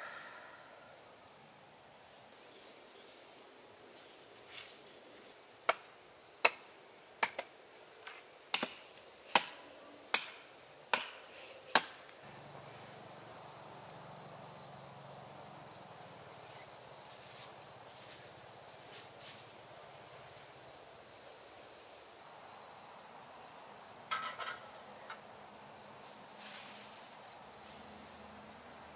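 Hatchet chopping: a run of about ten sharp strikes, a little under a second apart. A steady high insect trill carries on behind them.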